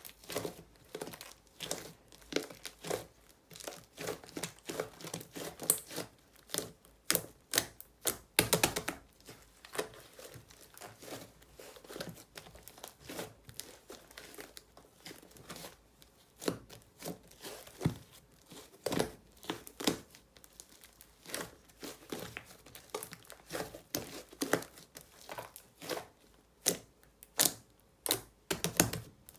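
Hands squishing, pressing and stretching a large batch of soft, sticky clay slime, giving irregular crackling clicks and pops.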